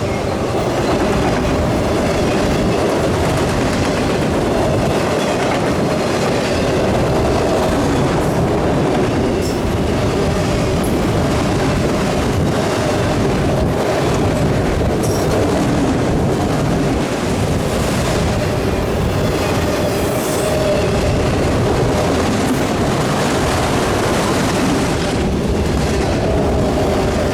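Freight train cars rolling past: a steady rumble of steel wheels on rail, with clicks over rail joints and a faint steady wheel ring.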